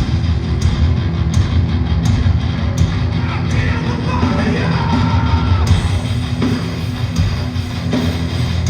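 A live hardcore band playing loud and fast: distorted electric guitars, bass and drums, with some shouted vocals.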